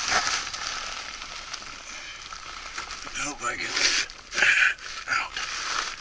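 Crinkling and rustling of foil-wrapped flexible duct insulation as it is handled, in irregular bursts that are loudest between about three and five seconds in.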